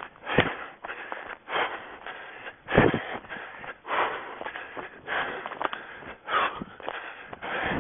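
A runner's breathing in a steady rhythm, about one breath every second or so, mixed with footfalls and occasional dull thumps as the body-worn camera jolts.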